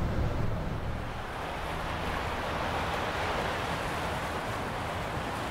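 Steady outdoor rushing noise of wind and water, with a low rumble that fades out about a second in.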